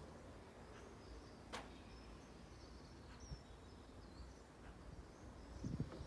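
A single sharp click about one and a half seconds in, a wedge striking a golf ball off a practice mat in a short chip, over faint bird chirps and quiet outdoor background noise. Low rustling comes in near the end.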